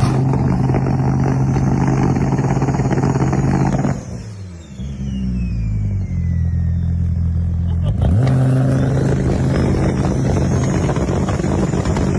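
Turbocharged car engine pulling hard under boost with a rising turbo whistle. About four seconds in the throttle snaps shut: the engine note drops, the turbo flutters and its whine falls away. It comes back on throttle about eight seconds in, with the turbo spool whistle rising again.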